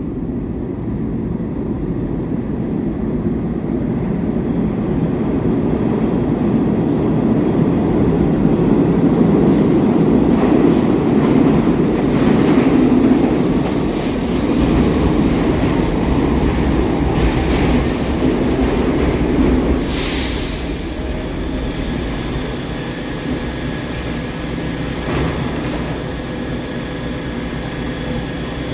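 NYC subway train of SMEE cars running on the G line: a steady rail rumble that grows louder toward the middle and eases off later. A brief hiss comes about two-thirds of the way through.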